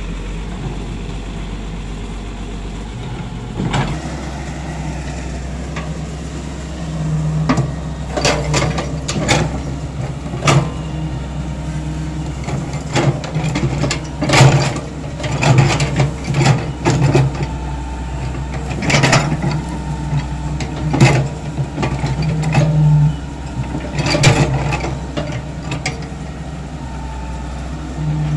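Wheeled excavator's diesel engine running steadily, its note swelling at times under load. From about four seconds in, many sharp clanks and knocks come as the steel bucket digs and scrapes into the soil.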